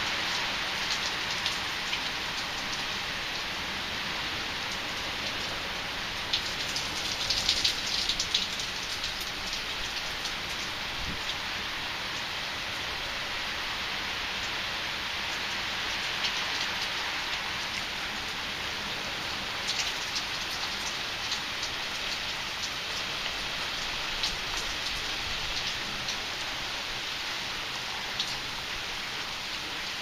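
Heavy rain falling in a steady hiss, with scattered sharp ticks of drops striking close by. A brief flurry of louder drip ticks comes about seven seconds in.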